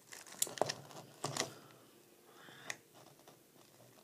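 Light plastic clicks and clacks of a stickerless carbon fiber 3x3 speed cube being handled and its layers turned as it is loosened. The clicks come in a quick cluster over the first second and a half, with one more about two-thirds of the way through.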